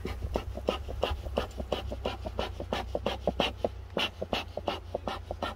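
Bee smoker's bellows pumped quickly, a fast run of short puffs of air, about five a second, over a steady low hum.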